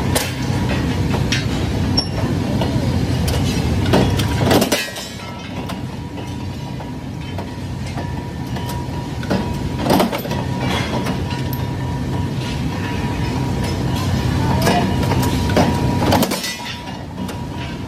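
Flywheel-driven mechanical power press running steadily with a constant hum and a thin steady whine, punctuated by a handful of sharp metal clanks at irregular intervals as the press strikes the end of a flat spring-steel leaf in its die.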